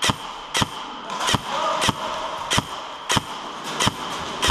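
Airsoft fire: a string of sharp cracks, about one every half second and unevenly spaced.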